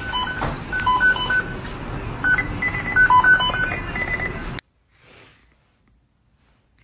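A dubbed-in electronic sound effect: a rapid string of short beeps at a few different pitches, like telephone keypad tones, over a hissy background. It cuts off suddenly about four and a half seconds in.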